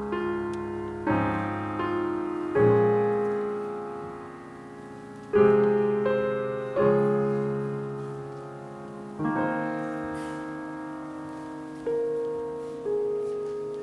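Slow, quiet piano music: soft chords struck one to three seconds apart, each left to ring and fade before the next.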